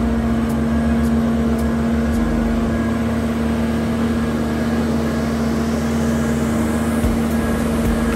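A Marine Travelift boat hoist running while it holds a boat in its slings. Its engine and hydraulics give a loud, steady hum over a low rumble.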